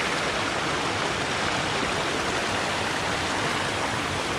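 A rocky stream rushing steadily over stones and a small cascade.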